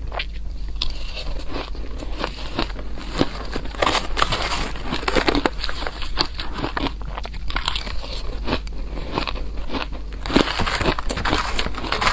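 Soft shaved ice dusted with green powder being bitten and chewed close to a clip-on microphone: a dense, irregular run of crunching, mixed with a metal spoon scooping ice out of the tub.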